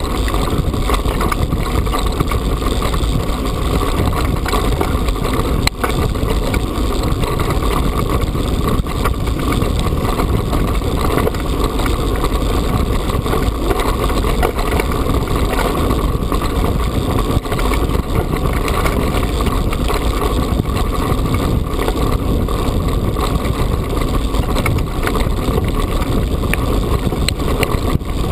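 Mountain bike riding over a rough, loose-stone track: a continuous rumble and rattle from the tyres and bike over the stones, with heavy wind noise on the microphone.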